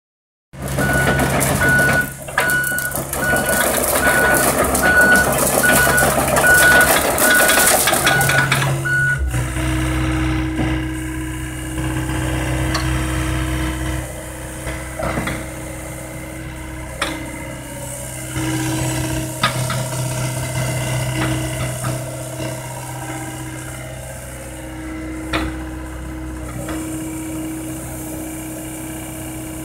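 John Deere 85G excavator's Yanmar diesel engine running, with its travel alarm sounding a steady series of beeps while the machine tracks across concrete. About nine seconds in the beeping stops and the engine keeps running, with a steady tone coming and going as the boom and arm move, and a few sharp knocks.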